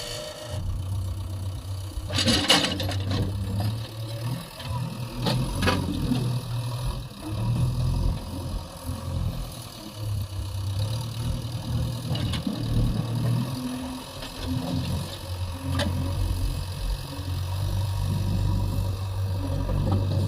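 JCB 3DX backhoe loader's diesel engine running, its level rising and falling as it works the ground, with a few sharp metallic knocks in the first several seconds.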